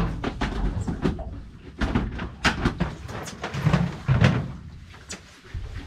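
Irregular knocks, clunks and clatter of scuba gear being handled and moved about on a metal boat deck, with a few heavier thuds about halfway through.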